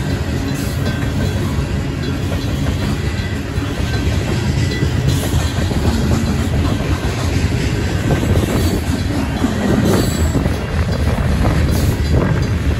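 Coal train cars rolling past a railroad crossing at a fairly slow pace, wheels clacking and knocking over the rails in a steady heavy rumble. The crossing bells ring along underneath.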